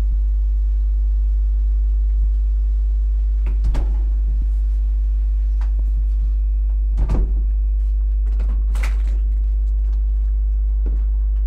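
A steady low electrical hum, a few knocks and clicks, and a front door being unlatched and pulled open near the end.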